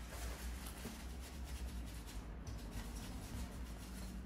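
Paper tissue rubbing and scrubbing against the laptop heatsink, wiping off old, dried-on thermal paste in quick scratchy strokes, over a steady low hum.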